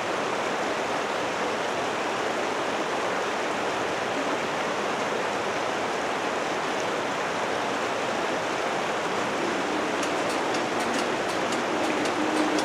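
Steady rushing noise like running water throughout. Near the end the crossing's barrier drive starts up with a low hum and a run of sharp clicks as the barriers begin to lift.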